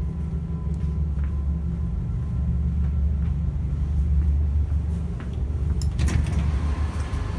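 Steady low rumble of an ED4M electric train running, heard inside the passenger car. About six seconds in, a clatter as the end door between cars opens, and the running noise grows louder and harsher.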